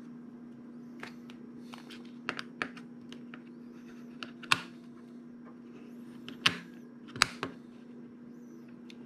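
Small hard-plastic clicks and taps of a Sony WF-1000XM4 earbud being handled and seated in its charging case, with the case lid shutting. There are about ten light clicks, with three sharper snaps in the second half.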